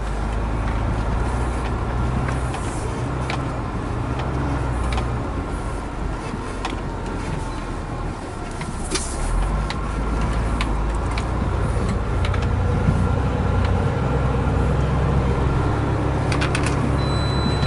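Truck engine running at low speed while the truck is driven slowly, a steady low rumble with scattered light clicks and knocks.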